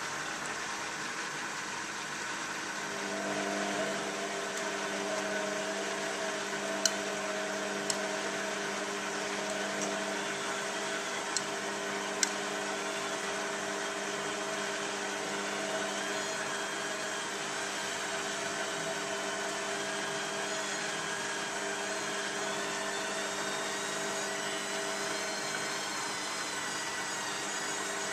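Beko WM5101W front-loading washing machine running early in a synthetics 40°C cycle: a steady hiss, with a motor hum that comes in about three seconds in and a few sharp clicks.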